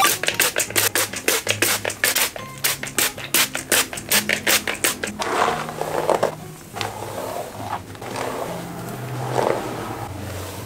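A hand-pumped spray bottle misting water onto a curly wig in quick sprays, about three a second, for the first five seconds. Then a paddle brush scrapes through the wet curls. Faint background music runs underneath.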